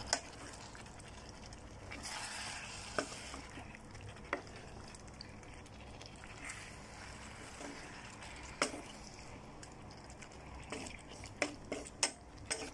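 Wooden spatula stirring chicken, gizzard and liver pieces in a thick sauce in a pan, over a low sizzle. Occasional sharp scrapes and knocks of the spatula against the pan, coming quicker near the end.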